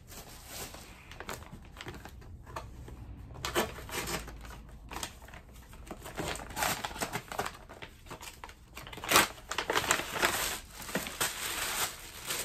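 Paper mailer envelope and plastic packaging crinkling and rustling as a package is handled and opened: irregular crackling that gets busier about three seconds in.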